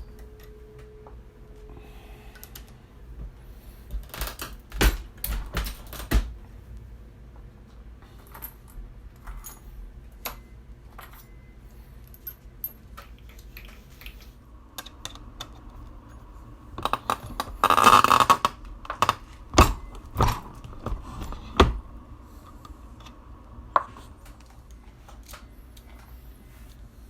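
Brass 30-30 rifle cartridge cases clinking and clicking as they are handled at a reloading bench, in scattered sharp clicks with a denser metallic rattle lasting about a second roughly two-thirds of the way through.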